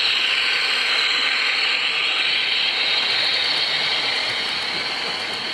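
O gauge model diesel train, a Class 42 Warship hauling Mk1 coaches, running past on garden track: a steady high-pitched whine and hiss that eases off slightly near the end as it passes.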